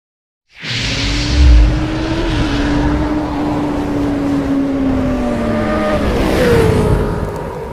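Motorcycle engine revving sound effect: a loud engine note that slowly falls in pitch, then jumps up and falls again near the end, with a deep boom about a second and a half in.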